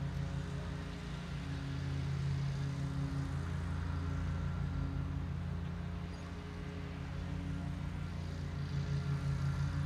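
Steady low mechanical hum of a running motor, with a slow throb in it.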